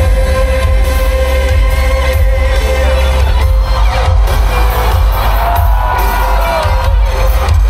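Loud pop music over a stadium sound system, with heavy bass under long held melodic notes.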